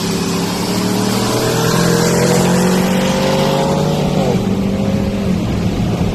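A car's V8 engine running loudly, its revs held and creeping slowly upward, then dropping back about four seconds in and settling at a lower, steady speed.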